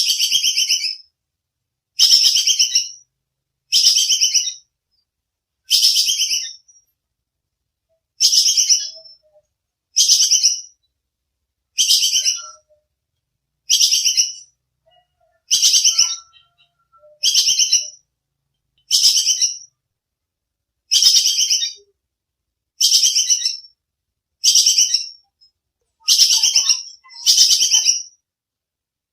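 Tupai kekes squirrel giving its sharp, rapid chattering call (the 'tembakan', or shot). Each burst is a fast run of clicks about a second long, and the bursts repeat every couple of seconds, about fifteen times.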